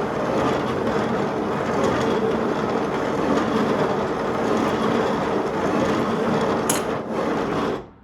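A wave-motion automaton's mechanism running, with a dense, steady clatter of many small parts moving. There is one sharp click near the end, and the clatter then stops abruptly.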